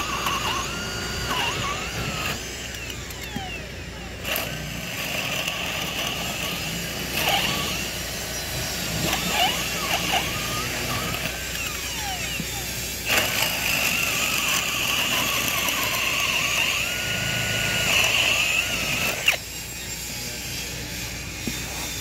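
Cordless drill running in repeated bursts as it bores into plywood form panels, its motor whine starting and stopping abruptly. The longest run is about six seconds near the end, with a step up in pitch partway through.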